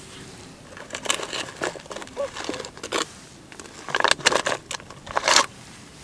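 Dry grass, leaves and soil rustling and crackling as a trapped bird is pulled out of a hole in the ground by hand. The sound comes in several short bursts, the loudest a few seconds in and near the end.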